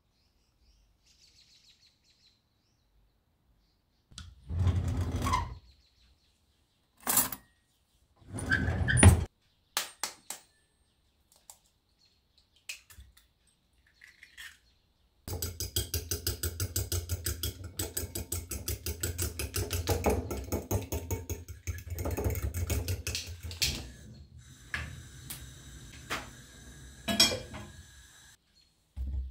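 A fork beating a mixture in a glass bowl: a fast, even run of clinking strokes that lasts about nine seconds. Before it come a few separate knocks and clinks of dishes being handled, and after it a lighter stretch of clinks.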